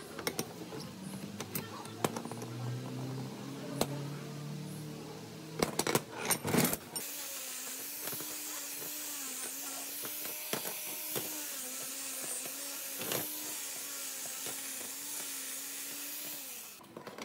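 Metal parts clicking and knocking as they are handled on a steel bench. Then, about seven seconds in, an angle grinder with a wire cup brush runs steadily against a painted metal bracket, scrubbing off rust and paint, with a whine that wavers slightly in pitch, until it stops near the end.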